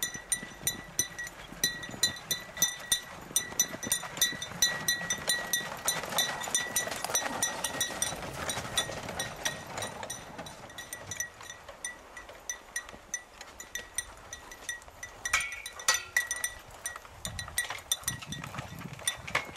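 Harness bells on a pair of horses pulling a sleigh, jingling in a steady pulse of about two to three shakes a second with the horses' trot. A short louder noise comes about fifteen seconds in.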